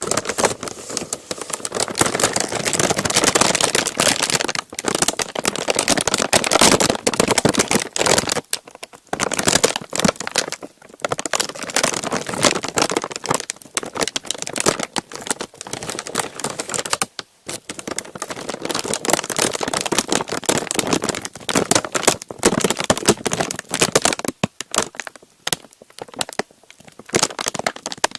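A thin, crinkly sheet crumpled and crinkled close to the microphone for ASMR. Dense, loud crackling goes on with a few short pauses, the longest about four and a half, nine, seventeen and twenty-five seconds in.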